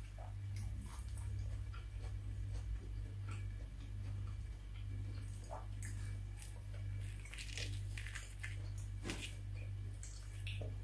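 Scattered soft crunchy crackles and clicks of crispy breadcrumb-coated fried food being handled and eaten, thickening a few seconds before the end, over a steady low hum.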